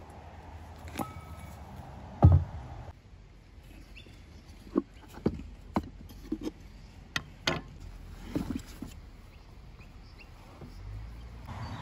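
Plywood cantilever box being opened: a heavy thump about two seconds in, then a series of short wooden knocks and clacks as the handles are pulled apart and the hinged trays fold out on the wooden table.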